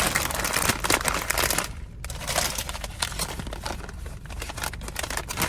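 Paper and plastic packaging crinkling and rustling as items are handled and packed into a gift basket, in irregular crackly bursts with a short lull about two seconds in.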